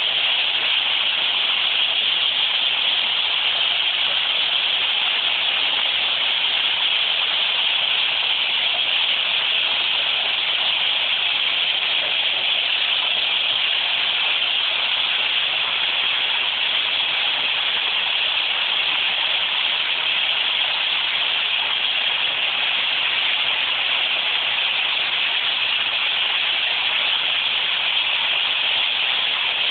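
Washing machine running at full speed, water churning in the drum in a steady rushing hiss with no knocks.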